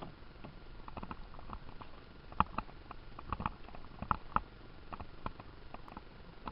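Canoe paddling close to the microphone: irregular wooden knocks and taps of a paddle against the canoe, the loudest about two and a half and four seconds in.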